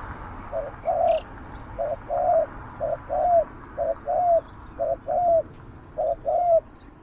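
Spotted dove cooing: a short note followed by a longer, arched coo, repeated about six times at an even pace.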